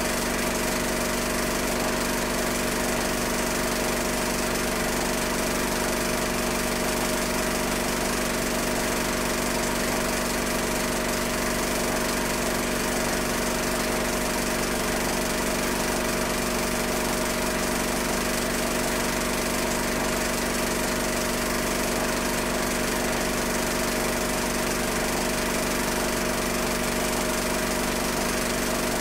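Steady, unchanging motor whir and hum of a film projector running, with even hiss; no sound from the streetcars themselves.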